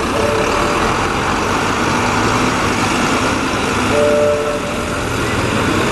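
A large vehicle running, a steady loud noise, with two short two-note beeps about four seconds apart.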